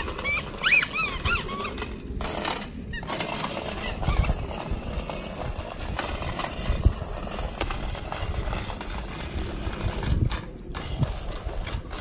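A child's bicycle horn squeaks in a quick run of short honks during the first second or so. After that the small bike's tyres and training wheels roll and rattle over rough asphalt.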